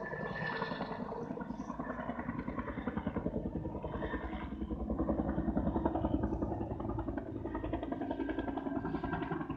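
Helicopter flying low overhead, its rotor blades beating in a fast, steady chop that swells a little louder near the middle.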